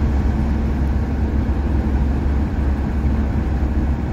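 Steady in-cab driving noise of a Renault Master motorhome cruising on a highway: a deep, even engine and road rumble with tyre hiss.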